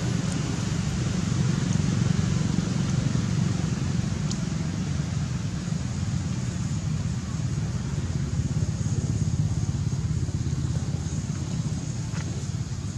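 Steady low rumbling noise with no distinct tones, with a few faint clicks about four seconds in and near the end.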